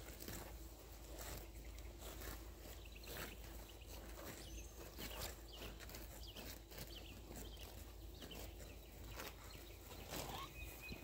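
Cattle grazing close by, tearing and cropping grass in short, irregular rips about once or twice a second, with a few faint bird chirps.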